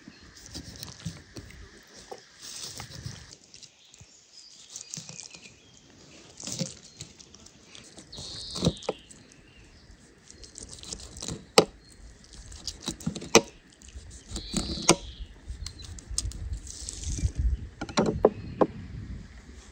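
Knife cutting and scraping through the scaly skin of a large raw fish: scratchy strokes with crackles and a few sharp clicks, the sharpest in the middle stretch. Birds chirp now and then.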